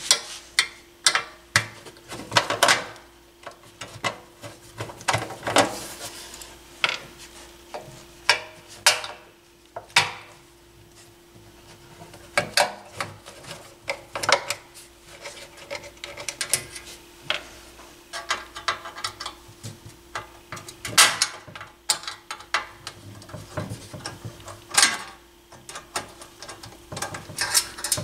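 Screws being backed out of a Fisher 550T stereo receiver's sheet-metal cover with a hand screwdriver: irregular metal clicks, scrapes and taps, with a faint steady hum underneath.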